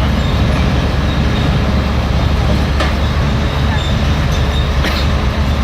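Hyundai R480 excavator's diesel engine running steadily under load while loading, with two sharp knocks about two seconds apart.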